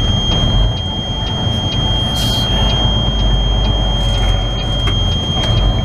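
Semi truck's diesel engine running at low speed, heard inside the cab, with a steady high-pitched tone held over it.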